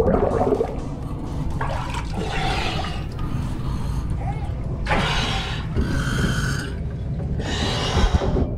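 Diver breathing underwater through a hookah regulator: exhaled air bubbles out in three bursts, each about a second long, over a steady low rumble.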